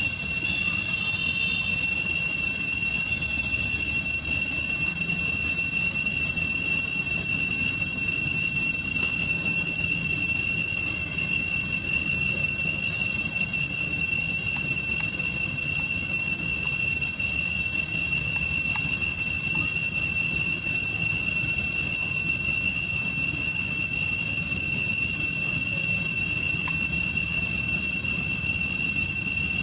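Insects droning in a steady, unbroken high-pitched whine over a low background rumble.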